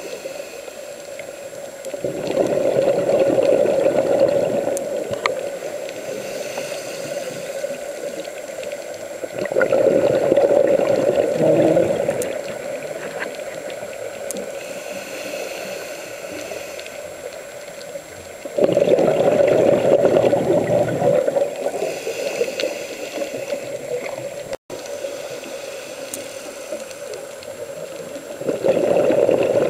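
Scuba diver's exhaled breath bubbling out of the regulator, heard underwater. Four loud bubbling surges of two to three seconds each come about every eight to nine seconds, with a quieter steady hiss between them.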